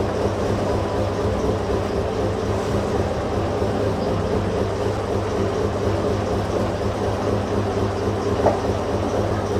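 Boat engine running steadily underway, a low even drone with a constant pitch.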